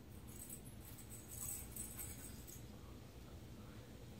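Faint wet mouth sounds of sucking on a hard-candy strawberry scorpion lollipop: soft crackly smacking for the first two and a half seconds, then only low room hum.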